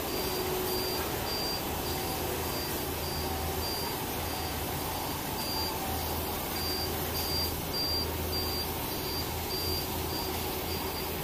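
Telescopic boom lift's motion alarm beeping, a steady series of short high beeps that signals the boom is moving, over the steady low hum of the machine's engine.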